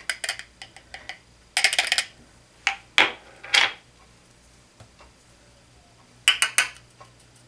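Plastic jar of loose mineral powder foundation (Bare Minerals) tapped and shaken to dump powder into its cap: several short bursts of rapid clicking and tapping.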